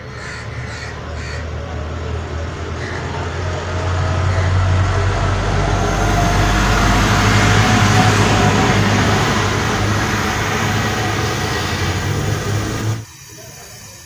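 Flame of a twin-hose gas brazing torch burning while fridge copper pipe joints are brazed: a steady rushing hiss over a low rumble that builds over the first few seconds and breaks off abruptly near the end. Crows caw a few times at the start.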